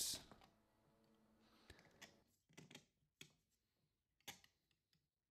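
Near silence, with a few faint scattered clicks of the 3D-printed plastic escapement mechanism being pushed onto its wall posts.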